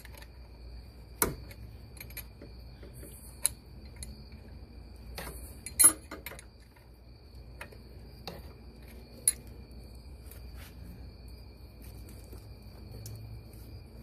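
Scattered sharp metallic clicks and clinks of a wrench working the brake line fittings on an ABS module while the lines are threaded in and tightened, about six in all, the loudest about six seconds in. A faint steady high-pitched tone runs underneath.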